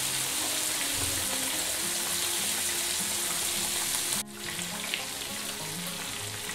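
Whole red snapper deep-frying in hot oil on high heat: a steady, dense sizzle that breaks off for an instant about four seconds in and comes back a little quieter. Background music with held low notes runs under it.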